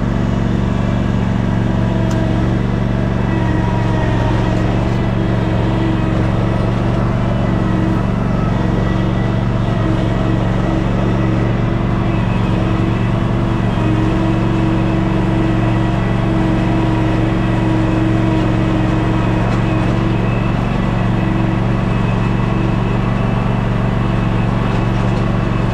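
Steady engine drone while a Polaris Ranger side-by-side tows the stuck riding lawnmower free on a tow strap, holding an even pitch throughout.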